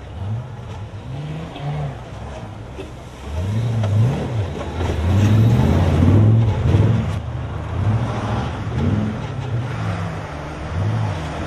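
Off-road 4x4 engine revving up and down over and over as it works its way up a steep slope, loudest as it passes close by from about four to seven seconds in.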